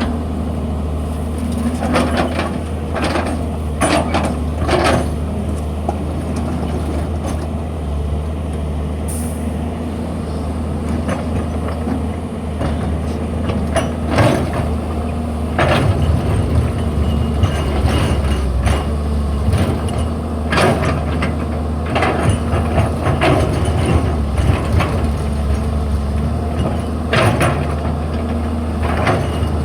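Excavator's diesel engine running steadily under a low hum, with short sharp clanks and hisses every few seconds as the machine works.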